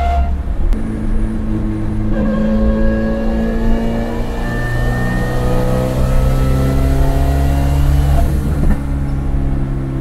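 Turbocharged Toyota AE86's engine heard from inside the cabin, accelerating under load. Its pitch climbs slowly and steadily between brief breaks about two seconds in and again near the end.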